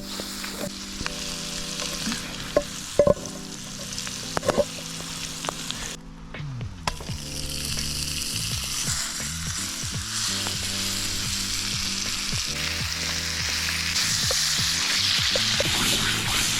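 Food sizzling hard over an open wood fire, with sharp pops and crackles. It drops away briefly about six seconds in, then comes back louder.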